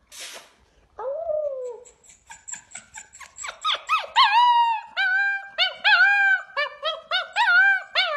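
Young grey, wolf-like pup howling: a single short falling call, then a quick string of little yips that builds into repeated wavering howls, each rising then dropping in pitch, about two a second and louder from about four seconds in.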